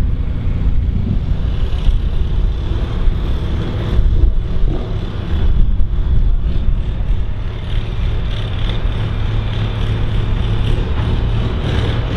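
Diesel engine of a John Deere 4955 pulling tractor idling steadily.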